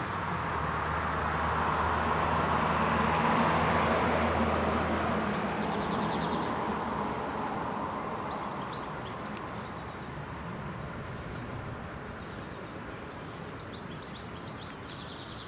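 Motor launch passing on the river: a low engine drone and the rush of its wash swell to a peak a few seconds in, then fade away as it moves off. High rapid chirps come and go through the second half.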